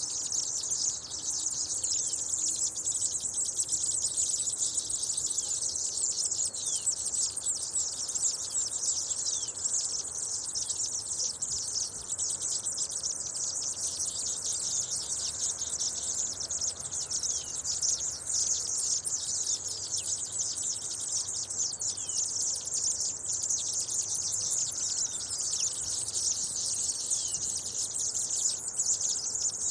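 Seedeaters twittering continuously: many high, rapid chirps and short falling notes overlapping without a break.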